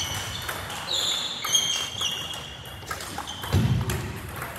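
Table tennis balls clicking off paddles and tables, several rallies at once in a hall. Short high squeaks come through, and a heavy thump lands about three and a half seconds in.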